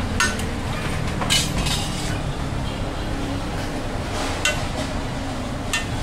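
Dishes and utensils clinking while lassi is made: a handful of sharp clinks over a steady low background rumble.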